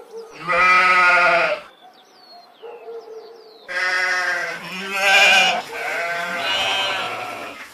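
Sheep bleating: one wavering bleat at the start, then after a pause of about two seconds a run of several bleats that fills the second half.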